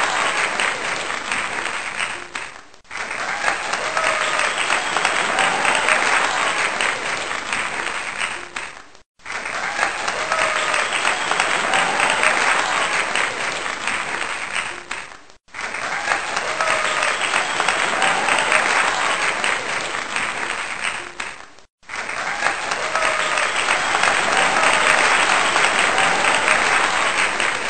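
Crowd applause and cheering, a recording looped about every six seconds with a brief drop-out between repeats.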